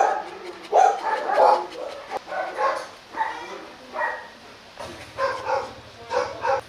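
Rottweiler barking over and over in short calls, some close together and some a second or so apart.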